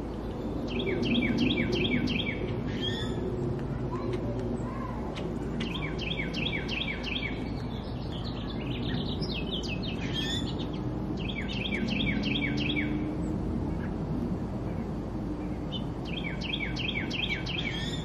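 A songbird singing one rapid phrase of repeated notes four times, each phrase about two seconds long and coming roughly every five seconds. Other birds give short chirps in between, over low steady background noise.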